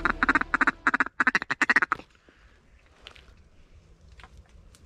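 Duck quacking: a fast run of about fifteen short quacks over two seconds, with a brief break after the first second.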